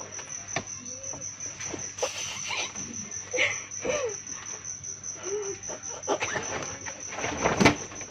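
A cricket chirring steadily in fast, even pulses, over scattered clicks and short rustles, with one loud knock near the end.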